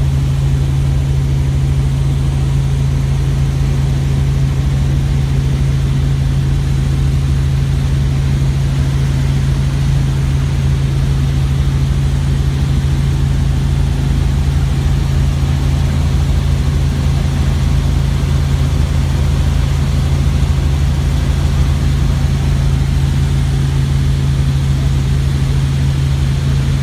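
Helicopter in flight heard from inside the cabin: the engine and rotor make a steady low hum with a rumble beneath it, unchanging throughout.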